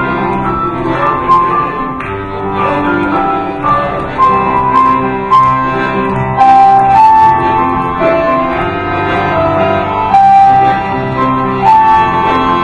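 Accordion and piano playing an instrumental passage together as a duet, with a melody line over chords.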